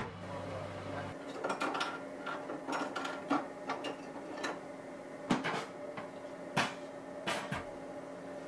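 A low benchtop-centrifuge hum that cuts off about a second in, then a run of sharp plastic clicks and clunks as the centrifuge lid is unlatched and the blood sample tubes are lifted out, over a steady hum.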